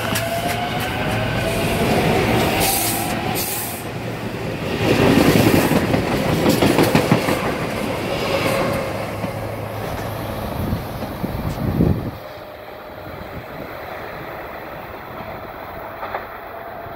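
SEPTA Silverliner V electric commuter train passing close by: steady rumble of cars and wheels, a whine rising in pitch over the first few seconds, and wheels clattering over rail joints around the middle. About twelve seconds in the train noise cuts off suddenly, leaving a quieter steady background noise.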